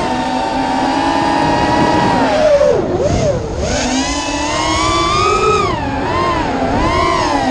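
FPV racing quadcopter's electric motors whining, the pitch swinging with the throttle: steady at first, dropping sharply about three seconds in, then climbing and wavering up and down.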